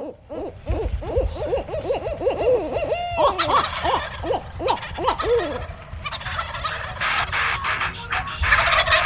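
A barred owl calling and wild turkeys gobbling in a fast run of rising-and-falling calls. The calls stop about five and a half seconds in, and music comes in.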